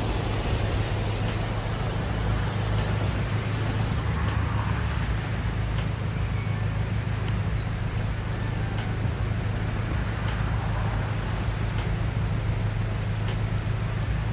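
Steady rushing noise of a river in flood, with a deep, constant rumble of wind on the microphone.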